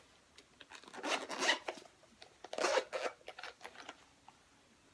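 Packaging being handled as a box is opened: two rasping, rustling bursts of about half a second each, with a few small clicks between and after.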